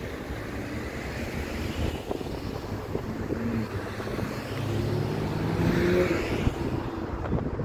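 Motor traffic with wind noise on the microphone: a vehicle's engine grows louder to a peak about six seconds in, then fades.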